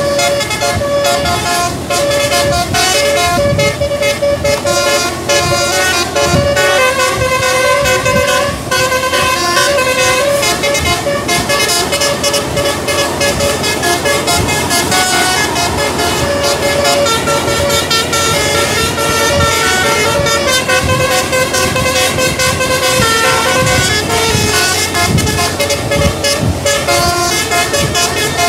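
Tour bus musical horn (a basuri telolet) playing a loud tune: held notes that step up and down in pitch every half second or so.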